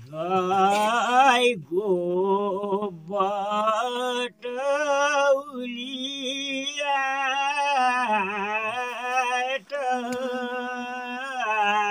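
An elderly man singing a village folk song unaccompanied, in long drawn-out phrases with a wavering, ornamented pitch and short breaths between them.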